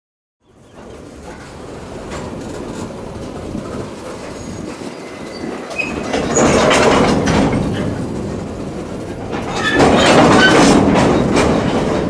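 Steel wheels of a slow-moving freight wagon rolling along the rail, rising from about half a second in, with clicks and thin wheel squeals. The sound swells twice, around the middle and again near the end, as the wheels come close.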